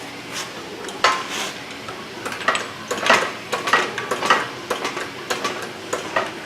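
Irregular metallic clinks and clanks, starting about a second in, of steel hardware and tools being handled while an engine-stand adapter is bolted up to the engine.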